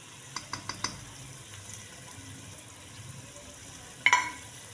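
Tomatoes and onions in oil sizzling faintly and steadily in a cooking pot. About half a second in there are four light taps of the spice spoon, and about four seconds in a metal measuring spoon clinks down sharply on a stone counter with a short ring.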